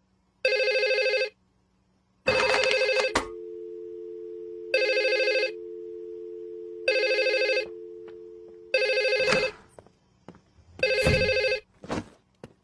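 Telephone ringing in short bursts, six rings about two seconds apart. After the second ring comes a click, then a steady two-note tone that fades out before the fifth ring ends. A few faint clicks follow near the end.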